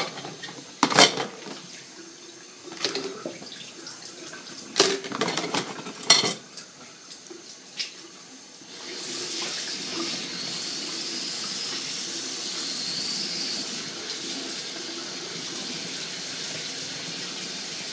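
Tongs and containers clattering in a kitchen sink, a few sharp knocks. About nine seconds in, the tap comes on and water runs steadily into the sink.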